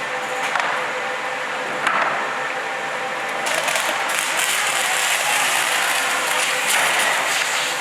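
Roll laminator running, its rollers drawing printed wrap vinyl and laminate film through with a steady mechanical noise that grows louder and hissier about halfway through.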